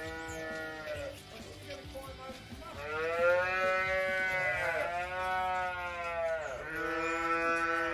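Dairy calves bawling: four long, drawn-out moos, a shorter one at the start and three longer ones from about three seconds in, two of them overlapping, each dropping in pitch as it trails off.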